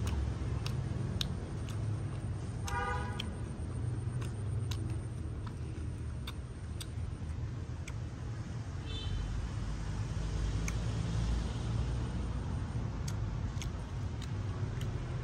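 Steady low rumble of city road traffic, with a short car horn toot about three seconds in. Scattered sharp clicks come and go.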